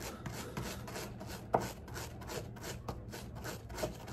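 A small brush scrubbing a bolt in quick back-and-forth strokes, about four or five a second, knocking oily residue off the freshly de-rusted metal, with one sharp tap about a second and a half in.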